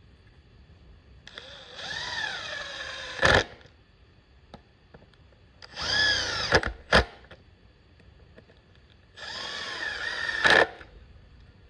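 Handheld power drill run in three short bursts, its motor pitch rising and falling in each, and each burst ending in a sharp knock.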